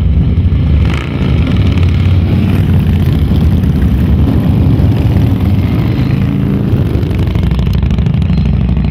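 Motorcycle engines running loudly and steadily, with a brief dip about a second in.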